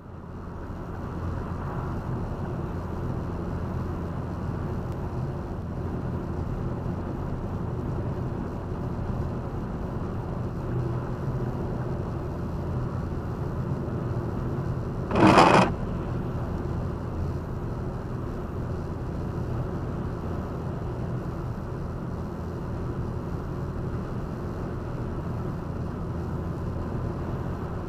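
Steady road and engine noise from inside a car cruising at motorway speed, about 120 km/h. About halfway through comes one short, loud burst of noise lasting about half a second.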